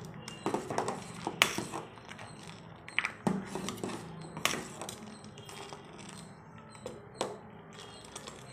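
Metal ladle stirring thin lentil soup in a steel pot, knocking and scraping against the pot with a handful of sharp clinks.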